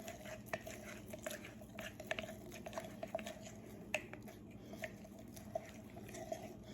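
Spoon stirring a thick, sticky paste of honey, ground spices and lemon juice in a bowl: quiet, irregular scrapes, clicks and wet squishes.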